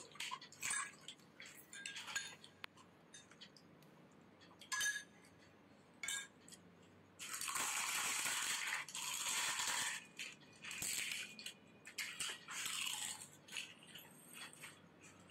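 Crisp, hollow panipuri shells cracking open and crunching as they are eaten, heard as scattered sharp crackles and clicks; a denser, louder stretch of crunching comes about seven to ten seconds in.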